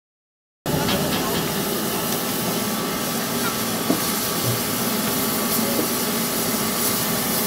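Narrow-gauge steam locomotive standing at a water crane to take on water, giving a steady hiss of escaping steam that starts abruptly about a second in. A single sharp knock comes about halfway through.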